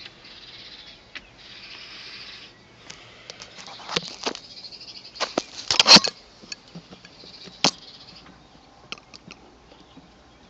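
Handling noise from a camera on a tripod being set in place: rustling, then a run of sharp clicks and knocks, loudest about six seconds in.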